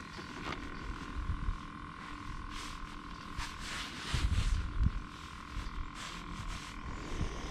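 Bow-mounted electric trolling motor running with a steady whine. Gusts of wind rumble on the microphone, and there is brief rustling from hands handling line and hook about halfway through.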